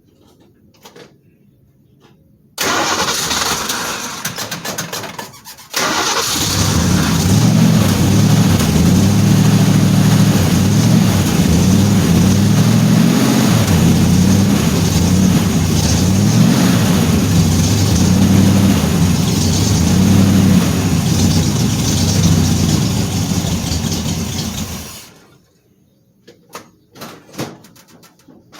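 1966 Shelby GT350H's 289 V8 starting about three seconds in, faltering briefly, then catching and running steadily until it is switched off near the end. The start shows the tightened battery kill switch is passing power.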